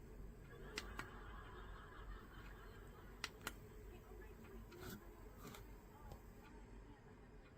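Faint background noise with a few soft clicks, in pairs about a second in and about three and a half seconds in.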